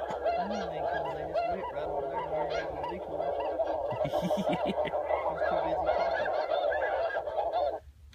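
Many geese honking at once, a dense overlapping chorus of short high honks that stops abruptly near the end.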